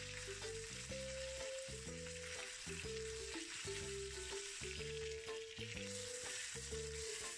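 Stuffed chicken rolls with their skin on sizzling steadily in hot oil in a frying pan as the skin browns, the moisture inside the rolls making the oil spit. Soft background music with a simple stepping melody and bass notes plays underneath.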